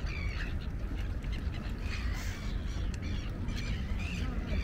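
A flock of gulls calling repeatedly with short, harsh, bending cries, over a steady low rumble.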